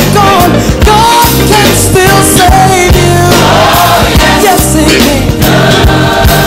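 Gospel song playing loudly: a singing voice over a band with a steady beat.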